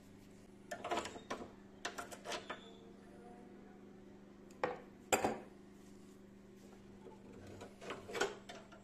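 Light clinks and knocks of metal parts being handled, in three short clusters, over a steady low hum.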